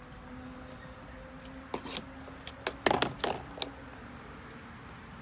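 A quick cluster of small clicks and rattles, loudest about halfway through, from handling multimeter test leads and the wires of a seat belt tensioner plug, over a low steady hum.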